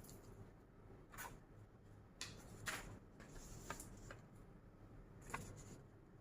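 Faint clicks and light rustling of small plastic figure parts and packaging being handled, about five light clicks spread over several seconds, with a short rustle about three seconds in.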